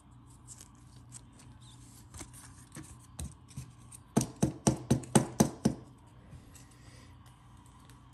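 A trading card being handled into a plastic card sleeve and hard case: faint scattered clicks of plastic, then a quick run of about seven sharp clicks, about five a second, a little over four seconds in.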